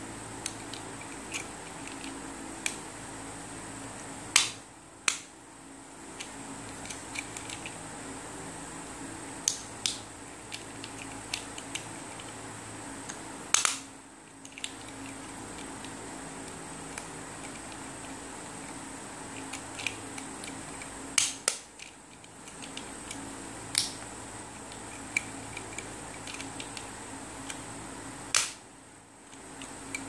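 Silicone bubbles of a Simple Dimple fidget toy being pressed with the thumbs, giving sharp pops at irregular intervals, about seven loud ones among many fainter clicks.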